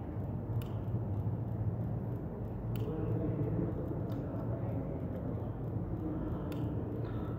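Steady low background hum and rumble of room noise, with a few faint clicks.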